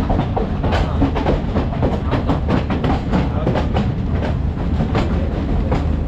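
Passenger train running, a steady low rumble of the carriage with the wheels clicking and clattering over rail joints many times.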